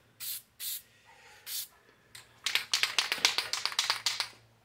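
Aerosol spray-paint can giving three short hisses of spray, then shaken hard for about two seconds, its mixing ball rattling quickly inside.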